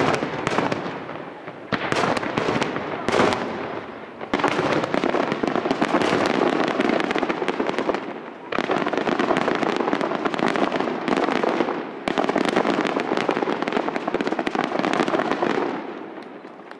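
Aerial firework shells bursting: a few sharp bangs in the first few seconds, then dense rapid crackling in three long surges that fade away near the end.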